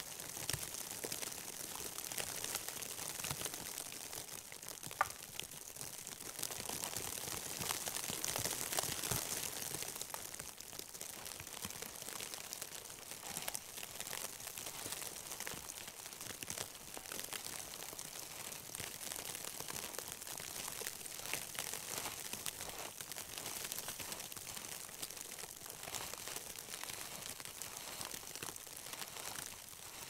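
Continuous rustling and crunching as a person crawls over snow and spruce boughs into a lean-to shelter, with one sharp click about five seconds in.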